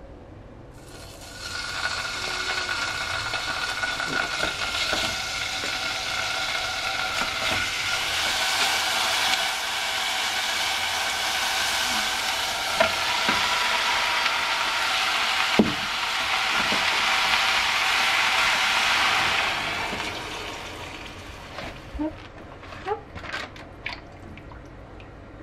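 Thin slices of pork sizzling as they stir-fry in hot oil in a saucepan, with a few sharp knocks now and then. The sizzle starts about a second in and dies away a few seconds before the end, leaving only a few light knocks.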